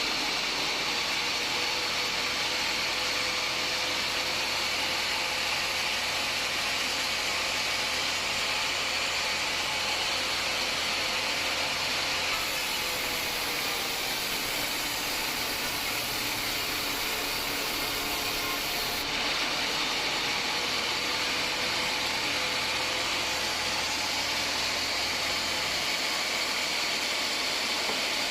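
Homemade band sawmill running and cutting through a hard acacia log, a steady sawing noise with a motor hum underneath.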